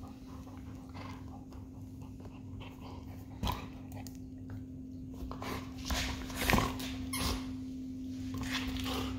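Golden retriever chewing and mouthing a flexible rubber puzzle cube toy with tennis balls inside, with short knocks and rustles as the toy is worked over the floor. A sharp knock comes about three and a half seconds in and the loudest cluster around six to seven seconds in, over a steady low hum.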